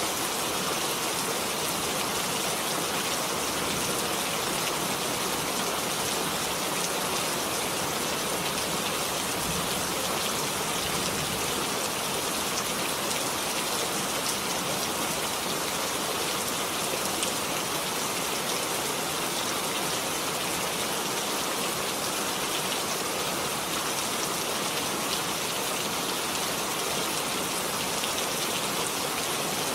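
Steady rain falling: an even, unbroken hiss of rain with a fine patter of individual drops, holding the same level throughout.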